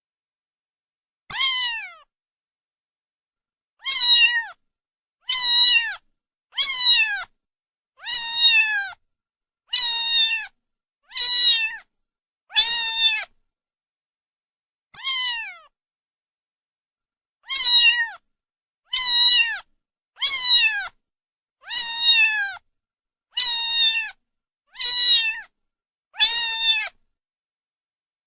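A cat meowing over and over, about sixteen meows in a row. Each is a short call that drops in pitch as it ends, with silent gaps between them.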